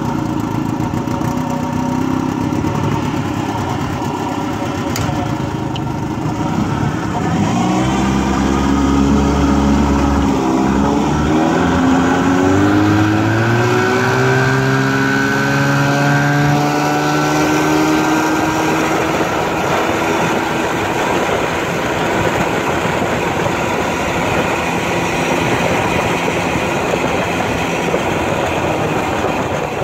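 1967 Evinrude Fastwin 18 hp two-cylinder two-stroke outboard running, idling steadily at first, then throttled up, its pitch climbing for about ten seconds as the boat gets going, then holding steady at speed. Water rushes past the hull alongside the motor.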